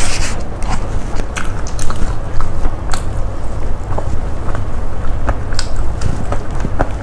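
Close-miked eating: a person chewing and crunching mouthfuls of rice and crispy fried fish bits eaten by hand, with many short crackles and clicks scattered throughout over a steady low hum.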